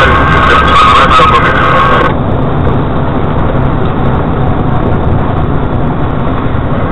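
A car horn sounding steadily, cut off about two seconds in. Then the steady engine and road rumble of a car driving, as picked up by a dashcam.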